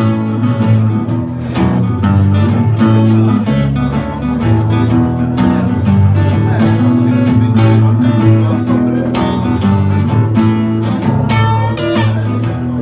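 Instrumental break of a pop-rock song: guitar playing over a held bass line, with no singing.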